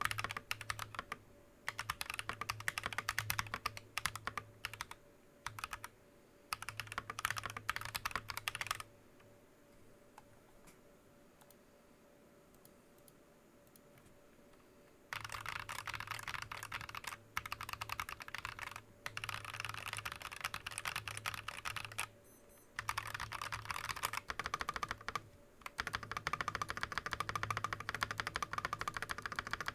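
Fast typing on a TM980 mechanical keyboard with Akko Lavender tactile switches and Drop Keysterine keycaps: dense runs of key clacks, broken by short breaks and one pause of about six seconds in the middle.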